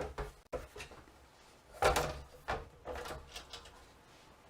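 Computer parts and objects handled on a workbench: a series of knocks, clacks and rustles, the loudest just under two seconds in.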